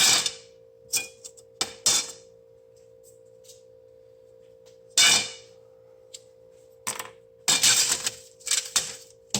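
Clanks and rattles of lightweight aluminum screen-door frame pieces being pulled apart and handled: a sharp clank at the start, a few lighter knocks soon after, another loud clank about five seconds in, and a run of rattling knocks near the end, over a faint steady hum.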